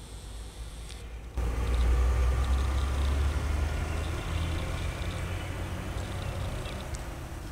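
A vehicle engine running with a deep, steady rumble and faint tones above it. It starts abruptly just over a second in and eases slowly toward the end.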